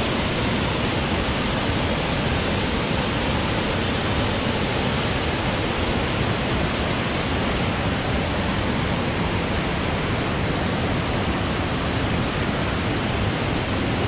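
Small waterfall and its cascades pouring over boulders into a pool: a steady rush of white water.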